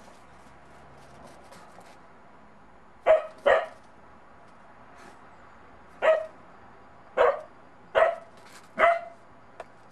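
Bedlington terrier puppy barking at an unfamiliar snowman, wary of it. There are six short, sharp barks: a quick pair about three seconds in, then four single barks roughly a second apart.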